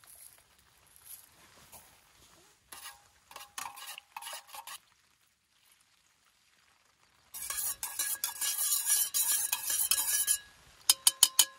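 Coffee being made in a metal camping pot on a gas stove: a few light taps, then a few seconds of hissing as oat milk goes into the hot pot, then a spoon stirring and clinking quickly against the pot's side, about five clinks near the end.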